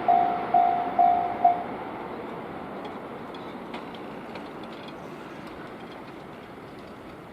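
Japanese level-crossing warning bell ringing about twice a second, stopping about a second and a half in. The rumble of a passing train fades away.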